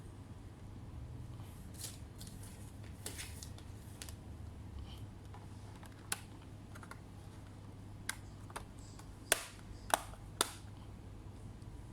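Sparse, sharp plastic clicks and taps from a laptop being handled, a few louder ones coming in quick succession in the second half, over a low steady hum.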